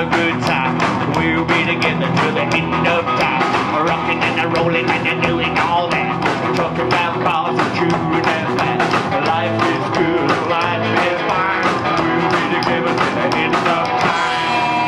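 Rockabilly band playing live with upright bass and drums on a fast, even beat. Near the end, held notes ring out steadily.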